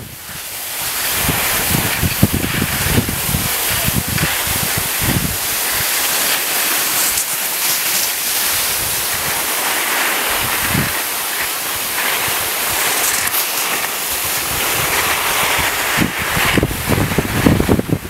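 Skis sliding downhill over packed snow: a steady hiss. Wind rumbles on the microphone now and then, most near the end.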